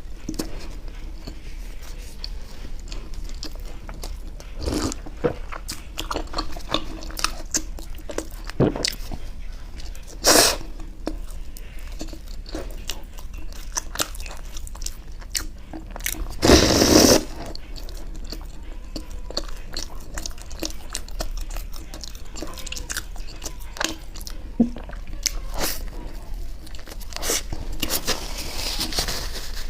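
Close-miked eating sounds of chocolate ice cream bread being bitten and chewed, with many small mouth clicks throughout. A louder, noisy sound lasting under a second comes just past halfway, and a shorter loud one comes about a third of the way in.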